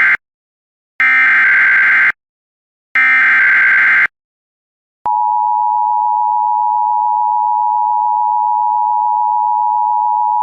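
Emergency Alert System SAME header: the end of one data burst, then two more harsh digital bursts about a second long, one every two seconds. About five seconds in, the steady EAS attention tone starts and holds, the signal that an emergency warning message follows.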